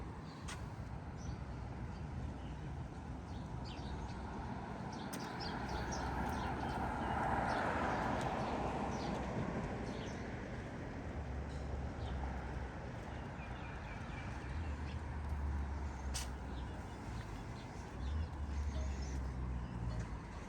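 Street ambience: a car passes, loudest about a third of the way through, while small birds chirp in short high calls throughout.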